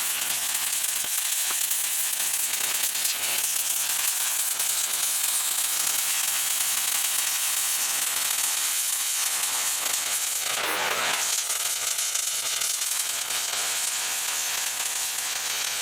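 A steady, crackling hiss that swells briefly about two-thirds of the way through.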